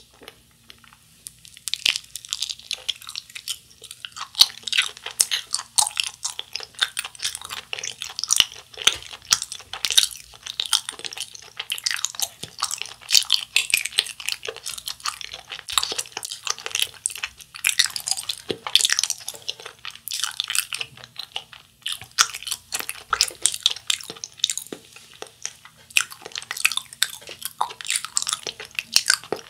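A person chewing a bitten Japanese wagashi sweet, close to the microphone: a dense, continuous run of quick, wet mouth clicks and smacks that starts about a second and a half in.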